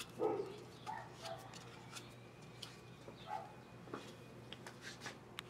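A few faint, short dog barks spaced about a second apart, with scattered light clicks.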